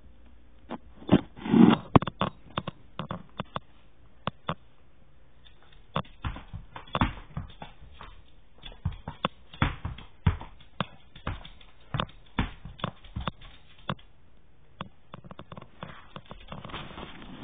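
Dogs moving and playing on a hardwood floor: irregular clicks, taps and thumps of claws and paws, loudest in a cluster of knocks just after the start, then a softer rustling near the end.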